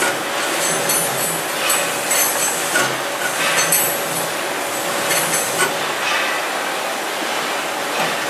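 Motorised roller for concrete ridge tiles running, with a steady motor hum and an irregular clatter as its wheeled carriage is pushed back and forth along its rail over the mortar; the knocks come every half second to a second and thin out after about six seconds.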